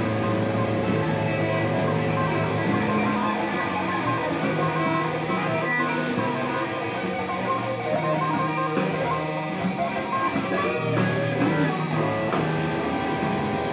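Electric guitar playing a blues, single notes and chords ringing on, with some notes wavering in pitch near the end.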